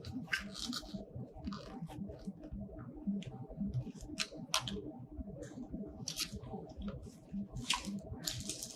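Plastic packaging crinkling and rustling in irregular bursts as packed accessories are handled and unwrapped.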